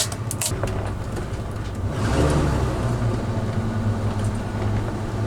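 Gasoline Class A motorhome driving, its engine and road noise a steady low drone heard from inside the cab, growing louder about two seconds in. A few light clicks come right at the start.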